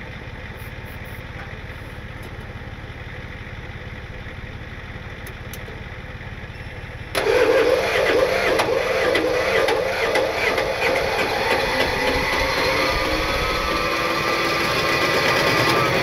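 Diesel farm tractor engine catching suddenly about seven seconds in and running on, after a steady low hum: a cold start in freezing weather, the block pre-warmed by a heat coil and the battery boosted with jumper cables.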